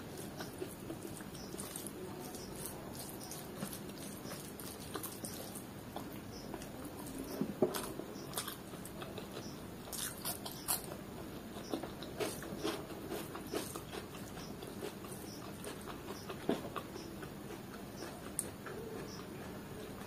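Chewing and wet mouth smacks of someone eating rice and chicken liver curry by hand, with the soft squish of fingers mixing rice into the gravy. A few louder smacks come in the middle.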